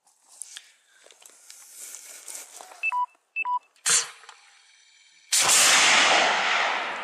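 Missile launch: faint clicks and handling noise, two short electronic beeps around 3 s, a sharp crack just before 4 s, then about 5.5 s in a sudden loud rushing blast of the missile's motor that slowly fades.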